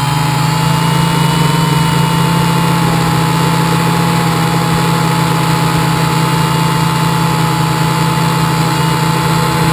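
Quadcopter's electric motors and red propellers running steadily in flight, heard from a camera mounted on the frame: a loud, even drone with a high whine that holds nearly level, drifting only slightly.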